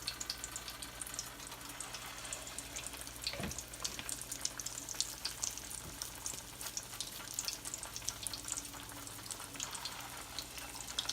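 Salmon patties shallow-frying in hot grease in a pan: a steady sizzle dense with small crackles and pops, one pop a little louder about three and a half seconds in.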